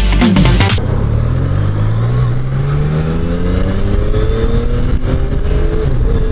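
Motorcycle engine pulling away, its pitch rising steadily as it accelerates for about four seconds, then levelling off near the end.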